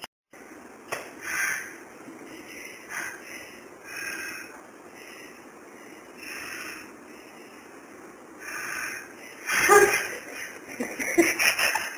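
A person breathing audibly, a breath about every two seconds, then a short burst of voice near the end.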